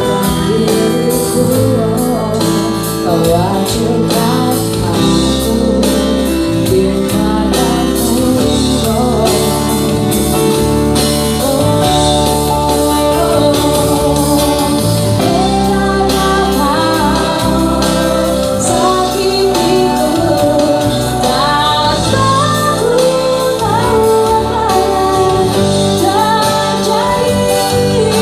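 A band playing a pop song with a singer carrying the melody over sustained chords and a steady bass line.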